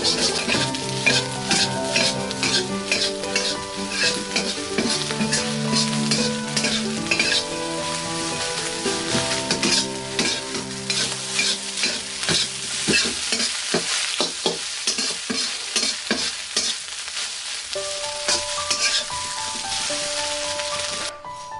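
A metal ladle scraping and striking against a black steel wok as egg fried rice is stir-fried, over the sizzle of the rice frying. The strokes come quick and close together, then grow sparser through the second half.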